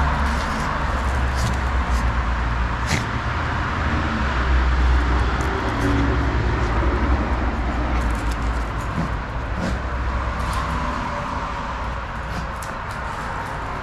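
Steady outdoor background rumble and hiss, like street traffic or wind on the microphone, with scattered light clicks.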